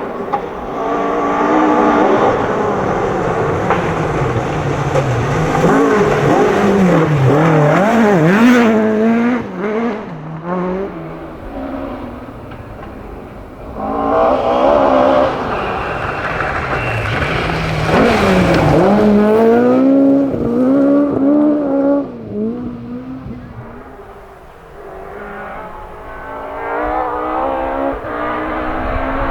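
Ford Escort Mk1 and Mk2 rally cars driven hard past the microphone one after another, engines revving up and dropping back sharply through gear changes and lifts. There is a quieter gap between cars a little before the end.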